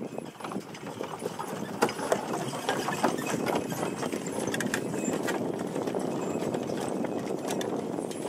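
Hooves of several draft horses clopping on a dirt track as they pull carriages and wagons, over a steady rumble of the spoked wagon wheels rolling.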